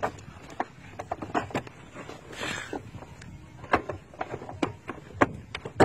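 Handling noise: irregular light clicks and taps, with a short rustle about two and a half seconds in.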